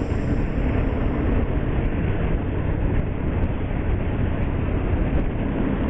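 Motorcycle riding at road speed: a steady rush of wind and road noise with the engine running underneath.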